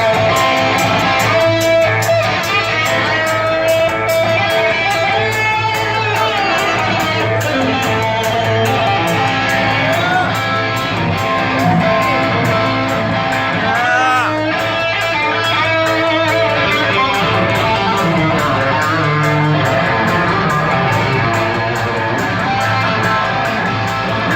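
Live hard-rock band playing, with an electric guitar lead over the band, its sustained notes bent up and down in pitch several times.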